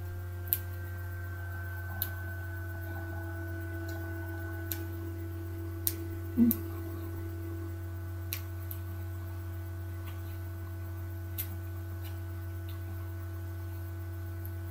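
Steady low electrical hum with a few fainter steady tones above it, and a handful of light clicks from handling a disposable dog diaper's fastening tabs. A short low sound comes about six and a half seconds in.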